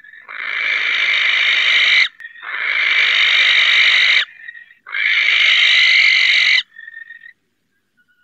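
Western barn owl screeching: three long, harsh, hissing screeches of about two seconds each, about half a second apart, with faint thin whistling notes in the gaps.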